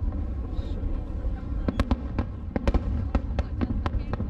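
Aerial fireworks shells bursting: a quick run of sharp cracks and pops from a little under two seconds in, over a steady low rumble.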